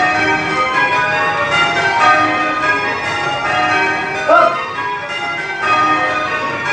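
A ring of eight church bells in change ringing, spliced methods, the bells struck one after another in a steady, even rhythm. A short call from a voice cuts in just after four seconds in.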